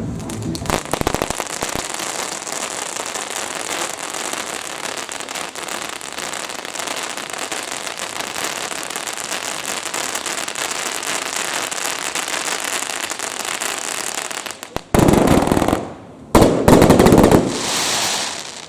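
Fireworks crackling densely and continuously for about fifteen seconds. Then come two loud, rushing bursts, each about a second long, near the end.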